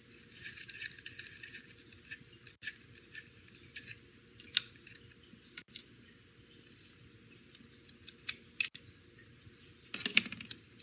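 Scattered small clicks and scrapes of a rotary cutter being taken apart by hand to free its blade, at irregular intervals, with a louder clatter near the end.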